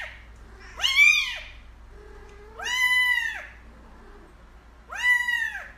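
Kitten mewing, a string of high-pitched mews about one every two seconds, each rising and then falling in pitch.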